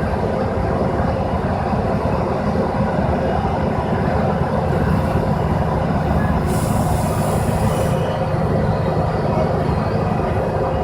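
Asphalt milling machine grinding the pavement: steady, loud engine and cutting-drum noise, with milled asphalt fragments clunking and clinking off the conveyor into a dump truck. A burst of hiss lasting about a second and a half comes a little past halfway.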